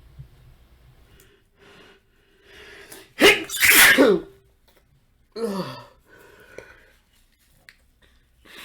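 A man's loud sneeze about three seconds in, set off by a nose tickle and preceded by gasping in-breaths as it builds. A short falling vocal exhale follows about two seconds later.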